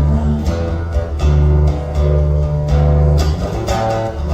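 Instrumental stretch of a live song: guitar playing over held bass guitar notes that change about once a second, with no singing.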